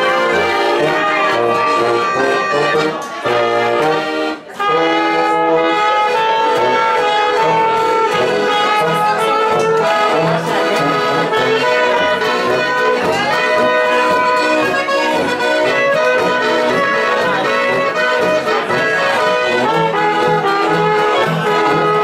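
Live Tyrolean folk band playing a lively tune, with trumpet, clarinet and a diatonic button accordion carried by guitar and a low brass horn. The playing breaks off briefly about four seconds in, then resumes.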